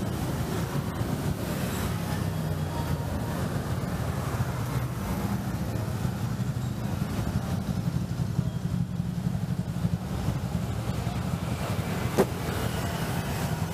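City street traffic: a steady rumble of passing road vehicles, with one short sharp click about twelve seconds in.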